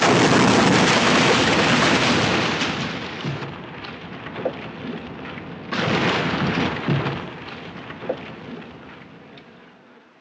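Airplane crash explosion and fire. A sudden loud blast at the start dies down over a few seconds into crackling with scattered pops. A second loud rush of flames comes about six seconds in and fades away near the end.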